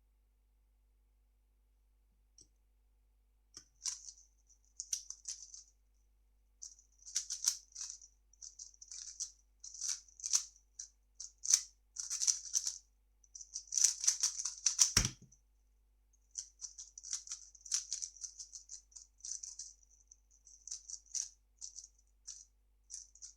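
3x3 speedcube being turned fast by hand: rapid bursts of plastic clicking and rattling from its layers, broken by short pauses. One sharp knock about fifteen seconds in.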